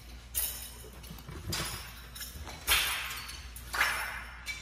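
A pu dao blade swung through the air: four sharp swishes about a second apart, each starting suddenly and fading out.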